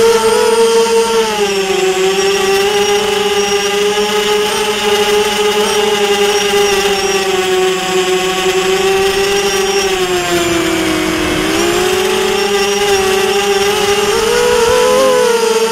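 Drone's electric motors and propellers whining steadily, heard from the camera on board. The pitch dips about ten seconds in and rises briefly near the end.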